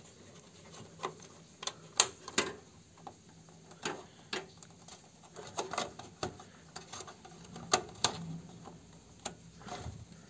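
Irregular clicks and taps of a RAM stick being pushed into a motherboard memory slot and hands handling parts inside a desktop PC case.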